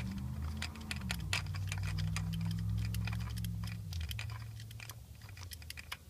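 Ratchet clicking in quick, irregular ticks as the Helicoil installation tool is backed out of the transmission case's threaded hole, over a low steady hum. The ticking grows fainter after about four seconds.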